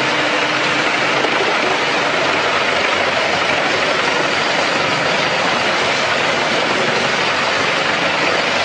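Heavy-duty wood chipper running steadily with a loud, even rushing noise, without separate knocks or bangs.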